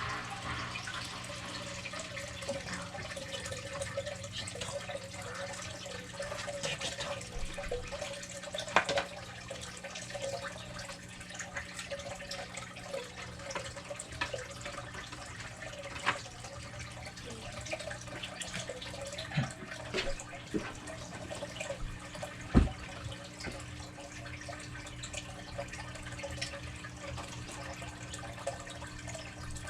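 Aquarium hang-on-back power filter running: water steadily trickling and splashing from its outflow into the tank, over a faint low motor hum. A few small knocks and clicks break in now and then.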